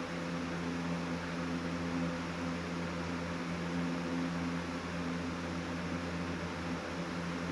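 Box fan running steadily: an even whoosh of moving air over a low motor hum.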